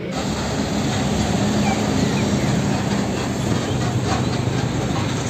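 Steady vehicle engine noise, a tanker-truck sound effect that cuts in abruptly and holds at an even level.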